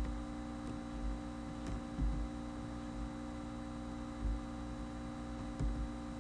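Steady electrical mains hum picked up by a computer recording microphone, with a few soft low thumps.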